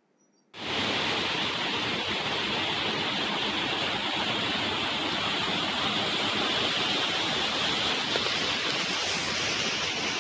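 Steady rush of river water pouring over rocks, cutting in suddenly about half a second in.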